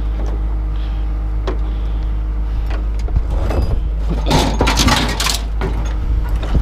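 Truck engine running steadily, with a few single knocks and then a loud burst of clattering, like scrap being handled, about four to five seconds in.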